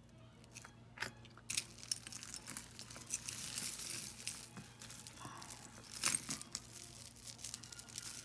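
Crinkling rustle of a bag as a hand rummages through loose costume jewelry, with a few sharp clicks of pieces knocking together.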